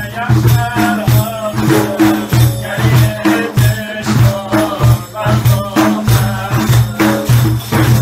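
Several large def frame drums played together in a steady rhythm: deep booming strokes, with the metal jingles inside the frames rattling on the beats.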